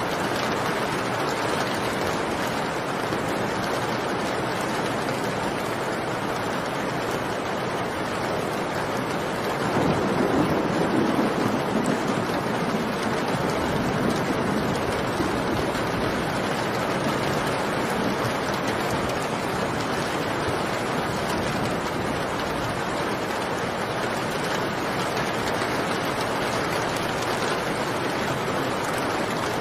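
Steady heavy rain. About ten seconds in, a low rumble of thunder swells up and fades away over several seconds.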